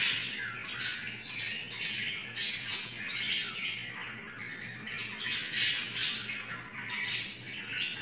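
Two budgerigars squabbling, giving a rapid, irregular string of harsh squawks, the loudest near the start, about two and a half seconds in and about five and a half seconds in.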